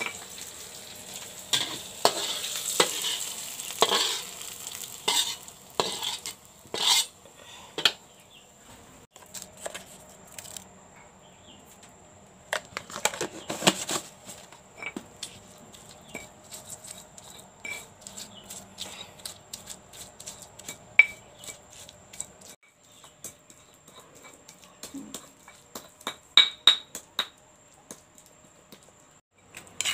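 Stone pestle scraping and knocking in a wet stone mortar (Indonesian cobek and ulekan): a dense run of scrapes and knocks for the first several seconds, then scattered sharp clicks and knocks as the mortar is handled.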